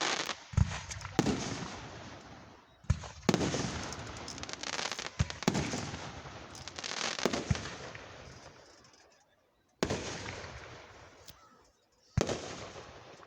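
Aerial fireworks shells bursting overhead: about eight sharp booms at uneven intervals, each trailing off in a long echoing rumble and crackle, with a lull of a second or two before the last two bursts.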